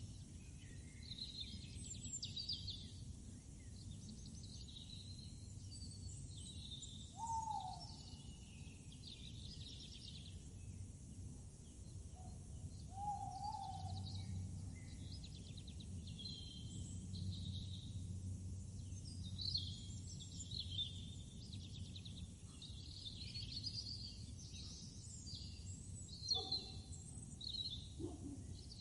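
Many birds singing and chirping over a steady low rumble, with a few short falling calls now and then.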